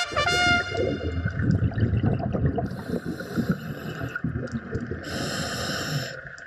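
Underwater ambience heard through a camera housing: a muffled, irregular rumble and crackle of moving water. A short glittering chime sounds at the start, and two brief hissing bursts come around the middle.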